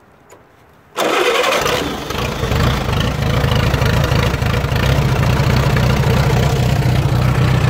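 1940 Allis-Chalmers B tractor engine started with the choke pulled out: about a second in it cranks and fires right up, then settles into a steady run.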